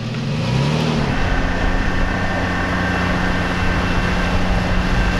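An engine revs up briefly in the first second, then runs steadily at a constant pitch.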